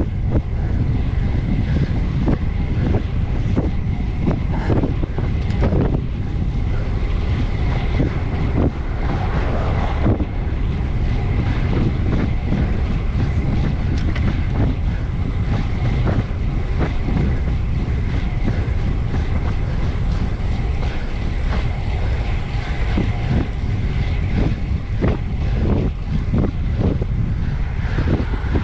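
Wind buffeting the microphone of a low-mounted camera on a bicycle ridden at full effort, over a steady rush of tyre and road noise with frequent small knocks and rattles.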